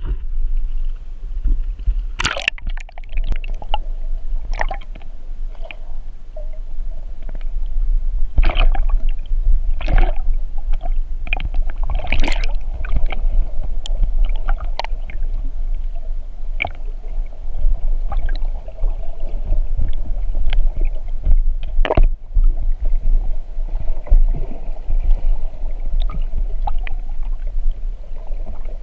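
Underwater sound picked up by a GoPro in its waterproof housing: water sloshing and gurgling over a steady low rumble, with many scattered knocks and clicks.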